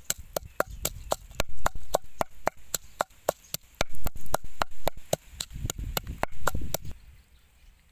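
Wooden pestle pounding garlic and red chilies in a mortar: quick, even strokes, about four or five a second, stopping about seven seconds in.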